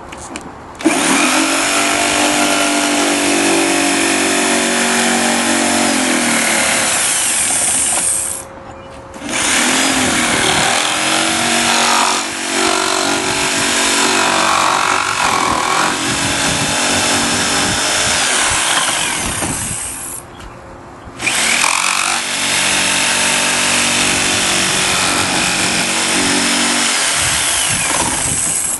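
Corded jigsaw cutting through a plastic bumper cover. It runs in three long stretches, stopping briefly about eight seconds and again about twenty seconds in.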